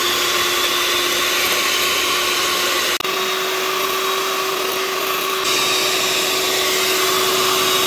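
Electric hand mixer running steadily, its twin beaters whipping eggs and sugar into a pale, foamy sponge batter: a constant motor whine with a brief break about three seconds in.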